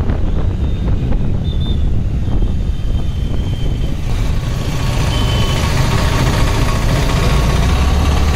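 Motor scooter riding through city traffic: a steady low rumble of engine, road and wind noise, with a few short high-pitched beeps from nearby vehicles.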